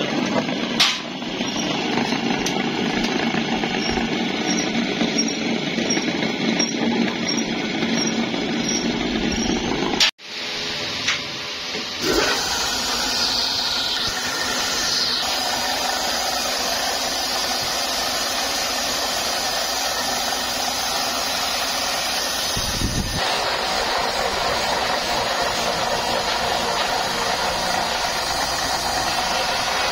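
Belt-driven workshop machinery running steadily: an electric motor turning a roller machine that works a steel tray's rim, then a buffing wheel polishing a steel tray. The sound cuts out abruptly about ten seconds in and changes character again around twelve and twenty-three seconds.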